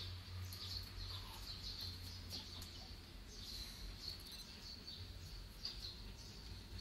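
Small birds chirping in short, repeated calls, over a faint low steady rumble.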